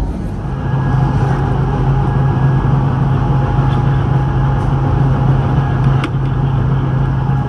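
Stadler GTW electric rack railcar running, heard from on board: a loud, steady motor hum with a higher whine above it over rumbling running noise. The hum sets in about half a second in, and there is a single sharp click about six seconds in.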